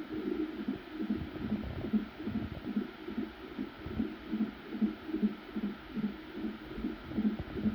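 Fetal heartbeat at 28 weeks of pregnancy, heard through a Doppler ultrasound monitor: fast, even pulses at about two and a half beats a second.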